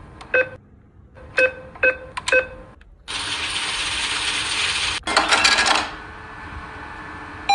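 Five short metallic chimes like coins dropping, in quick succession over the first two and a half seconds. Then a steady hiss for about two seconds, cut by a brief rattling burst.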